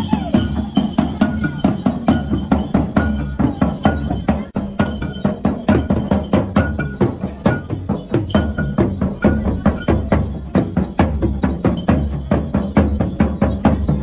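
Hand drums beaten in a fast, even beat as accompaniment to the Minahasa Kabasaran war dance.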